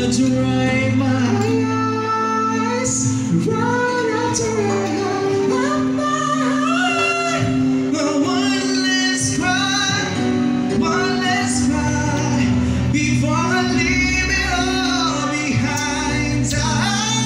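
Live band playing a song with a woman singing the lead vocal over steady accompaniment, amplified through PA speakers.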